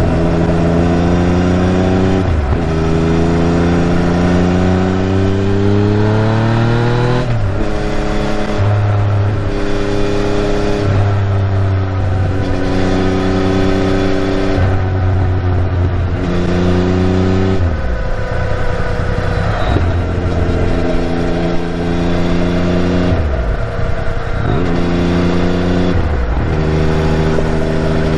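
Yamaha MT-09's inline three-cylinder engine pulling while being ridden. The pitch climbs under throttle and drops sharply several times at gear changes or throttle lifts, over a steady hiss. The owner is chasing a 'shaa' abnormal noise, which he feels is slightly reduced with the stock muffler refitted.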